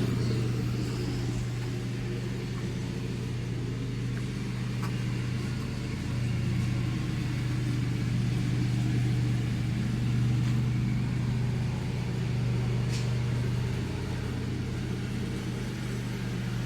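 Steady low motor hum with no change in pitch, and a few faint clicks over it about five, ten and thirteen seconds in.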